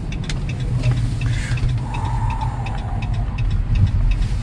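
Low engine and road rumble inside a Ram pickup's cab as it rolls slowly into a parking lot, with a regular light ticking about three times a second.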